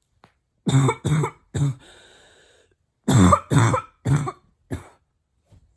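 A woman's closed-mouth barking cough, hard and deep, in two fits: three coughs in quick succession, a short pause, then three more and a weaker fourth.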